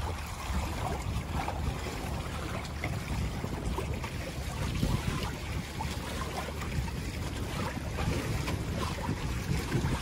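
Constant Camber 23 trimaran under sail: steady rush and splash of water along the hulls, with wind buffeting the microphone and scattered small splashes and ticks.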